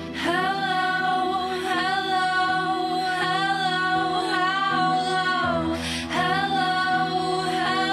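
Background music: a slow song with a voice singing long, held notes over a soft, steady accompaniment.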